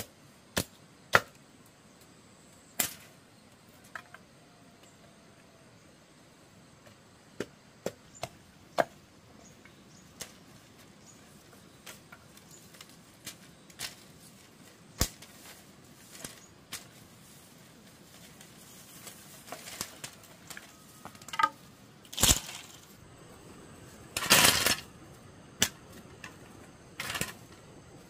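Scattered sharp knocks and cracks of hand work on wood, single strikes a few seconds apart, with a louder, denser spell of about a second near the end.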